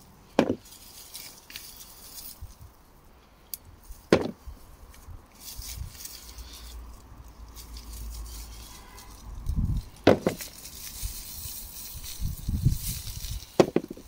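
Potato plants being pulled up by hand from a straw-mulched raised bed: rustling of haulms and straw, with several sharp clicks a few seconds apart and some dull thuds near the end.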